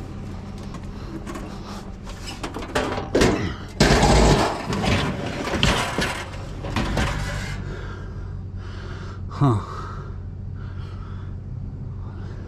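Hard objects knocking and clattering as things are handled and loaded, with one heavy bang about four seconds in, over a steady low hum. Near ten seconds there is a short squeak that falls in pitch.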